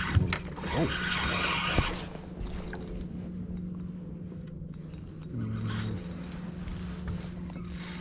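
Steady low motor hum, as from a bass boat's trolling motor, with scattered light clicks and rustle from handling a spinning rod and reel; the rustle is louder in the first two seconds.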